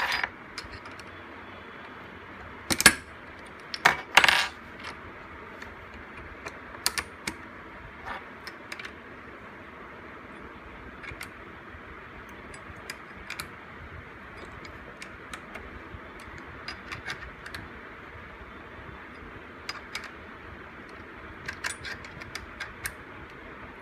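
Sharp metallic clicks and clinks from a hinge and the steel checking fixture holding it being handled and moved between two dial indicators. The loudest come about three and four seconds in, with another cluster near the end, over a steady hiss.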